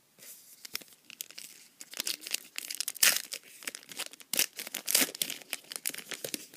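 A foil trading-card pack wrapper being torn open and crinkled, with a dense run of sharp irregular crackles that is busiest in the middle.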